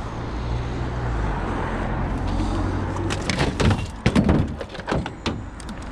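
A vehicle's low engine rumble for the first couple of seconds, then a quick run of knocks and clatters as scrap is picked up and handled.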